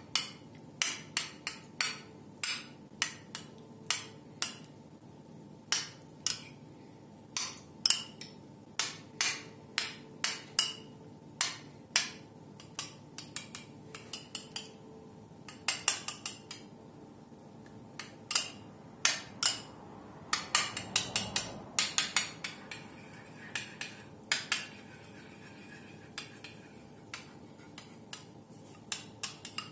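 Metal spoon clinking against a bowl as yogurt is stirred and thinned with milk: sharp, irregular clinks about once or twice a second, with a quicker run of them about twenty seconds in.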